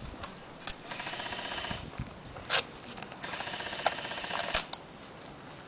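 Airsoft electric rifles firing two full-auto bursts, each about a second long, with a few sharp single cracks between them.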